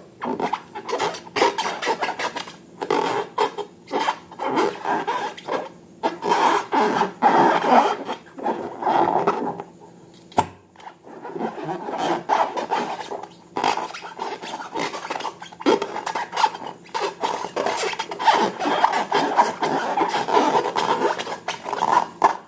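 Slime being stirred and squished: irregular scraping and rubbing in quick bursts, with a short pause about ten seconds in.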